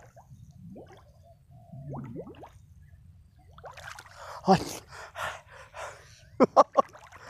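Water splashing and trickling around a cast net being worked in shallow water, with a man's short gasps and grunts of effort. There is a loud splash about halfway through and three quick sharp sounds near the end.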